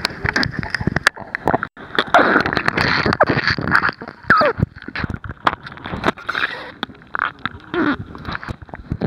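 Handling noise on a waterproof compact camera under water: a dense run of irregular clicks, knocks and scrapes as an octopus's arms grip and pull at the camera body, with a few short bubbling gurgles.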